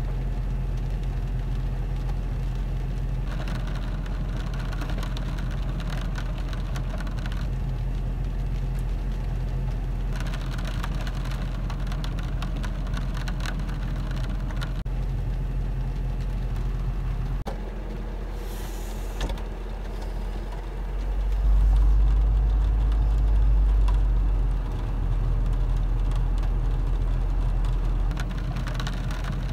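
Rain on a car, heard from inside the cabin over a steady low engine hum. About two-thirds of the way in, a louder low rumble swells for a few seconds, then eases.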